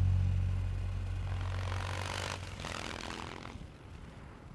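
Closing music with sustained low notes fades out. A motorcycle then passes in a rush of noise that swells about two seconds in and dies away.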